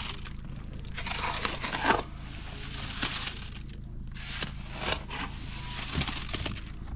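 Irregular rustling and crinkling handling noise with a few sharp knocks, loudest a little before two seconds in.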